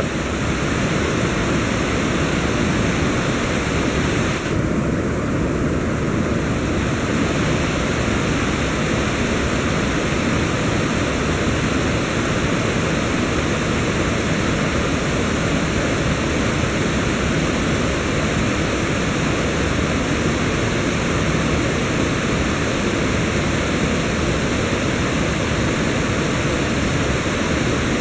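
Mountain river rushing steadily over boulders, an even, unbroken sound of water.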